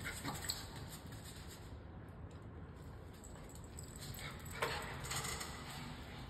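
Small dogs scampering on a hard floor: quick taps of paws and claws with light jingling, and a sharper knock about two-thirds of the way in.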